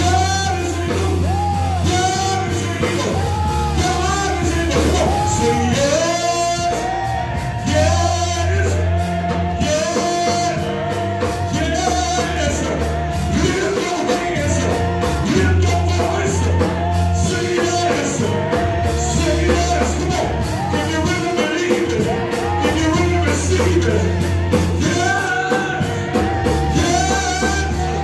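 Gospel song sung live with a band: voices carrying the melody over a heavy bass line and a steady drum beat.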